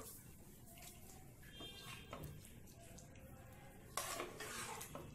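A spatula scraping and clinking faintly against a frying pan while stirring thick chicken gravy, with a louder run of scrapes about four seconds in.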